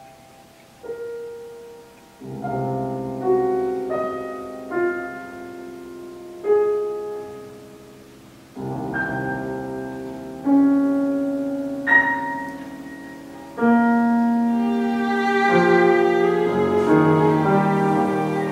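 Cello and grand piano playing slow classical chamber music: piano chords struck every second or two and left to fade, with the cello's bowed, vibrato-laden line coming to the fore over the last few seconds.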